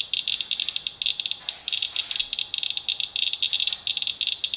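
Radalert Inspector Geiger counter clicking rapidly and irregularly, a fast stream of high chirps, one per count. It is counting a rain-wipe sample at about 0.43 mR/hr, a level the owner reads as roughly 42 times background.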